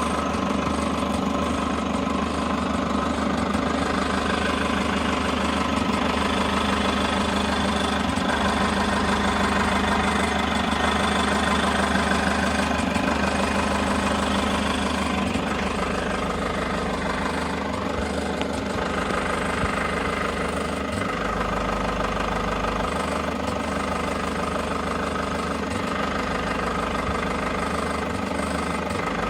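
Toyota HiAce KDH206V's 3.0-litre four-cylinder turbodiesel idling with the usual diesel clatter, mixed with an irregular light jingling rattle like a washer shaken on a bolt. The owner has been told this comes from the idle hunting, the intake air and fuel quantity fluctuating, with sludge in the EGR valve, intake manifold or throttle valve a likely cause.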